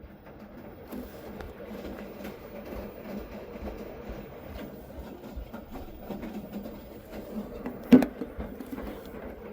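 Washing machine in its wash phase, churning the load through the water with an uneven sloshing, rumbling noise. A single sharp knock comes about eight seconds in.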